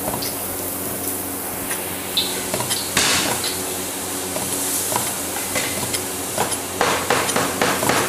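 A meat cleaver knocks on a wooden chopping board as cooked beef is sliced thin, in irregular strokes. One stroke about three seconds in is louder than the rest, and a quick run of chops comes near the end.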